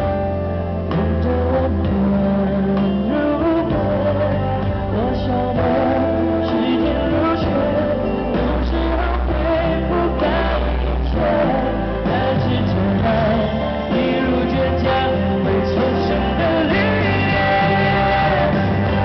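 A male singer sings a Mandarin pop song live into a handheld microphone over a full musical accompaniment with steady bass, amplified through the venue's sound system.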